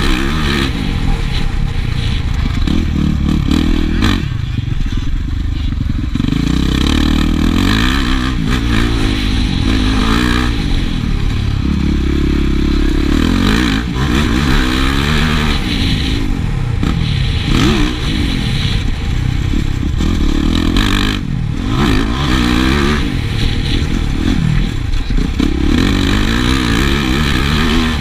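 Yamaha motocross bike's engine revving hard under load, its pitch climbing and falling back again and again as the rider shifts gears and rolls off into turns, heard close up from a rider-worn camera.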